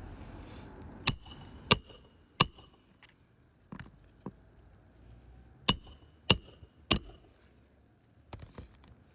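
Hammer striking a roof snake's steel bar to drive a roofing nail into a shingle: two runs of three sharp, ringing metal blows about half a second apart, with a few lighter taps between and a faint pair near the end.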